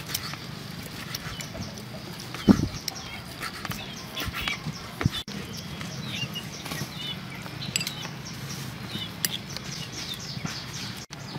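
A cleaver chopping through lobster meat onto a cutting board: a few sharp knocks, the loudest about two and a half seconds in. Birds chirp in the background.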